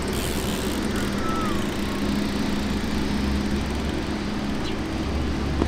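An engine running steadily in the background, a low even drone, with one sharp knock near the end.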